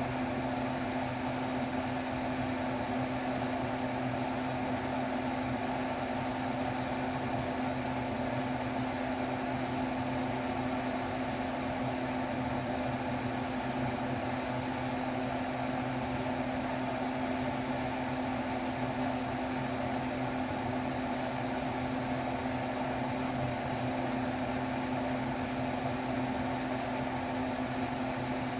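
Steady hum of a running appliance motor: one low, even tone under a constant airy rush, unchanging.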